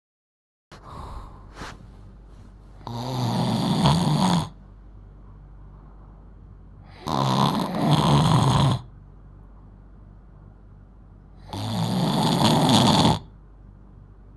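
A 12-year-old girl snoring loudly: three long, rough snores about four and a half seconds apart, each lasting about a second and a half, with quiet between them. A few faint clicks come just before the first snore.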